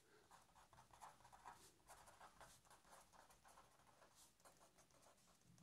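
Faint scratching of a black marker pen on paper, in many short strokes as words are handwritten.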